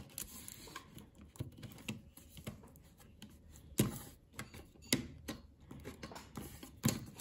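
Scattered small taps and clicks of fingers pressing adhesive strips and parts onto a Samsung Galaxy Fold 3's metal hinge frame, with a few louder knocks about four, five and seven seconds in.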